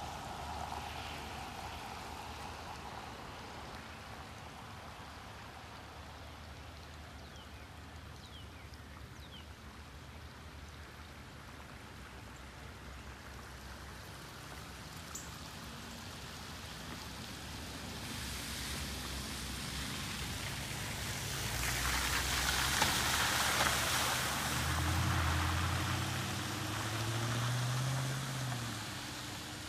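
Muddy stormwater runoff running across a flooded road, a steady hiss of flowing water. Past the middle a car comes along the road through the floodwater: a rising tyre hiss and swish with low engine hum, loudest about three-quarters of the way in, then fading as it drives off.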